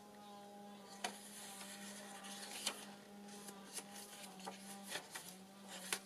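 Paper pages of a handmade junk journal being handled and turned: a few short, irregular rustles and taps over a faint steady hum.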